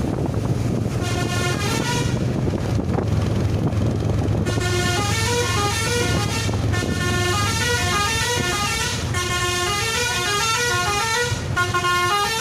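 Telolet multi-tone bus horn playing its jingling tune of short stepping notes over a steady low engine rumble. The tune starts about a second in and grows thicker, with more notes at once, from about four and a half seconds on.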